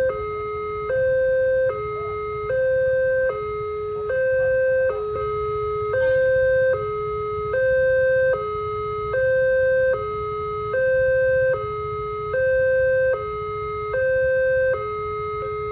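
Railway level-crossing warning alarm sounding a steady two-tone electronic signal, switching between a higher and a lower tone a little less than once a second. It warns that a train is approaching and the crossing barriers are closing. A low rumble runs beneath it.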